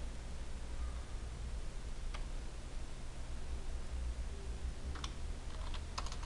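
Computer keyboard keystrokes and mouse clicks while AutoCAD commands are entered: a single click about two seconds in and a quick run of key presses near the end, over a steady low hum.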